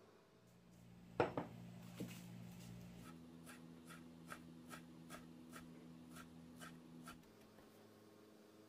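A chef's knife finely chopping pickles on a wooden cutting board: an even run of light, faint knocks about three a second, stopping about seven seconds in. A couple of louder knocks come about a second in, before the chopping.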